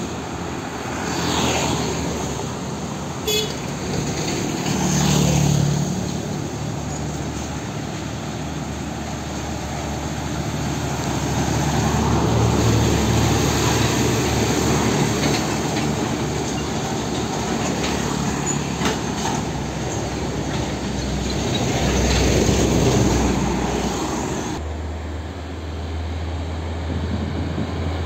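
Road traffic: diesel truck engines, cars and motorcycles passing. A MAN tractor unit hauling a tanker drives past close by in the middle, with swells as each vehicle goes by. About 25 seconds in, the sound cuts abruptly to a steadier, more distant traffic hum.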